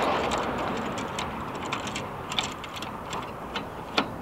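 Light, irregular metallic clicks and taps as the mounting hardware of a boltless, tension-held van-door ladder bracket is tightened by hand, with one sharper click about four seconds in.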